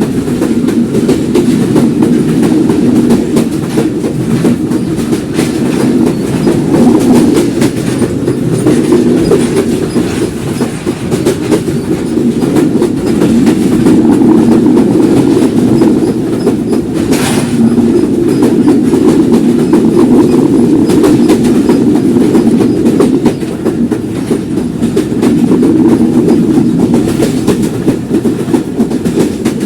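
Passenger train running along the rails: a steady rumble of wheels on track with a continual clickety-clack, and one brief sharper sound about seventeen seconds in.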